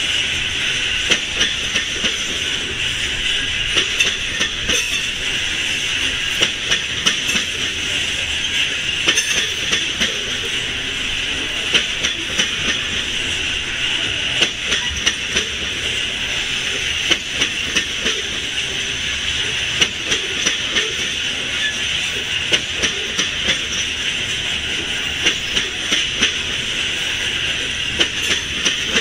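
Loaded coal hopper cars of a freight train rolling past: wheels clicking and knocking irregularly over the rails, over a steady hiss.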